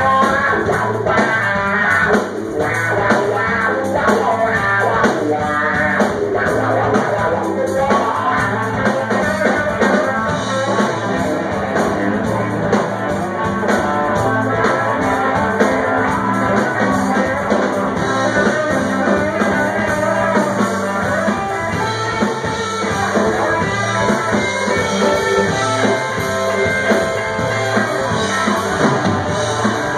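Live rock band playing: electric guitar, bass guitar, drum kit and keyboard together in a steady groove.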